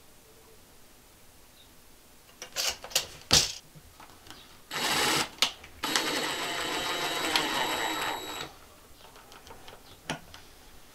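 Cordless impact driver driving the screws of a cabinet pull handle: a short burst about five seconds in, then a steady rattling run of about two and a half seconds with a high whine. A few sharp knocks beforehand as the handle and driver are set in place.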